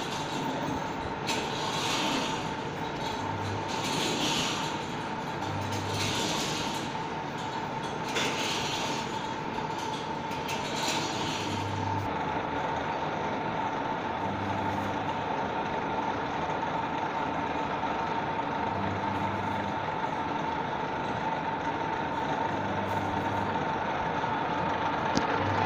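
Nut-and-screw type plano milling machine running: a steady motor-and-gear whine with a soft low pulse every two to three seconds.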